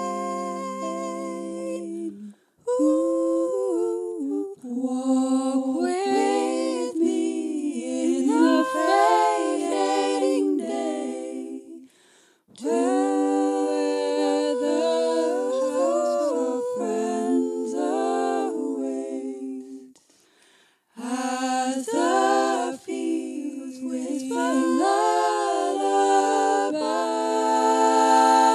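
Choir of mixed voices singing unaccompanied in harmony, in long phrases with brief breaks about two, twelve and twenty seconds in.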